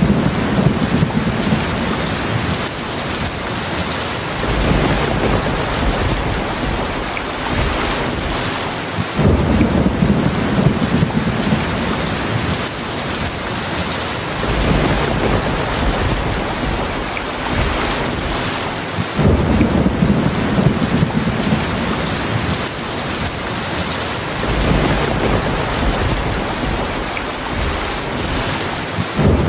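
Steady heavy rain with low rolls of thunder, a new rumble starting about every five seconds.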